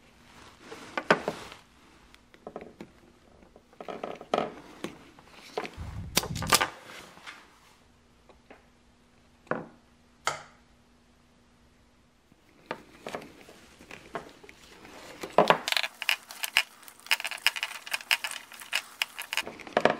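Hands handling a car's taillight wiring harness: scattered clicks, taps and rustles of wires and plastic connectors, then a dense run of crackling clicks near the end.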